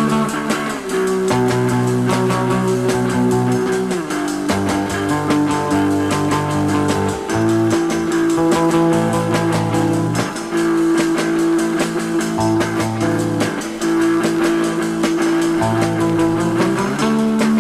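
1960s surf rock instrumental: guitars and bass over a steady beat, the low notes moving every few seconds.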